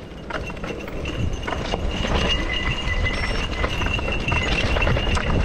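Mountain bike rolling down a rocky dirt singletrack: tyres on loose stones and the bike rattling with many short knocks over the bumps, over a steady low wind rumble on the mounted camera. A steady high whine runs through it, growing louder about two seconds in.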